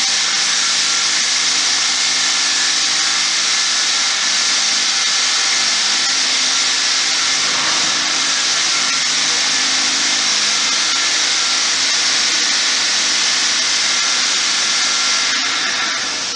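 MistMAXX 360 Hurricane XL mist sprayer running steadily: a loud rushing hiss over a steady motor hum, starting to die away at the very end.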